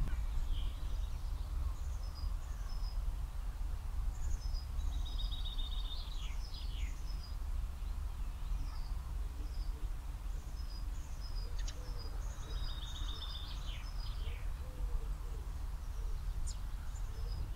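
Several small songbirds chirping and singing: many short high chirps and falling notes, with two buzzy trills, over a steady low rumble.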